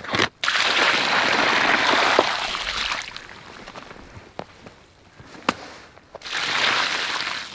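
Water poured from a bag onto the ashes of a campfire pit to douse it, splashing into wet ash. One pour of about two and a half seconds, a quieter pause with a few sharp knocks, then a second pour starting about six seconds in.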